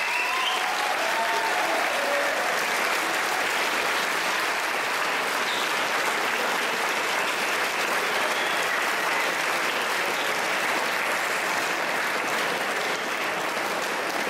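A large audience applauding steadily, the clapping holding at an even level.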